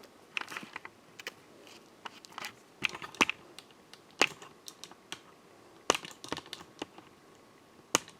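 Computer keyboard keys being pressed one at a time in an irregular rhythm, a few strokes louder than the rest.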